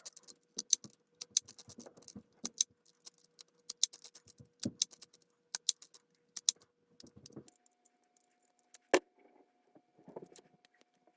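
Small metal parts and tools clicking and clinking irregularly as a 4.5-inch angle grinder is taken apart, with one louder knock about nine seconds in. A faint steady hum runs underneath and steps up in pitch partway through.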